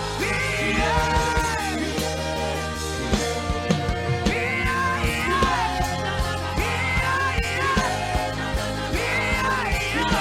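Worship music: a melody sung with slides between notes, over a steady bass and a drum beat.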